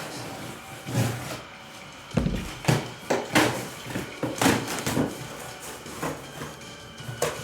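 Cardboard case being opened and the boxes inside handled: a series of knocks and scuffs of cardboard against cardboard, about a dozen.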